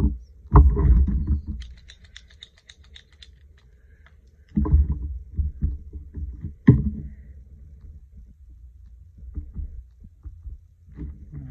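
Handling noise on a craft desk: low thumps and rubbing as hands move paper and a collage card on the table, with one sharp knock about seven seconds in and a brief run of fast, light ticks near the start.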